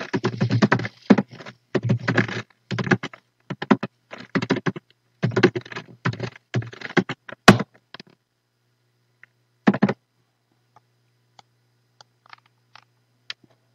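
Computer keyboard typing in quick bursts for about the first eight seconds, with one sharp, louder key strike near the middle. After that come a short burst and then a few single, spaced-out key taps.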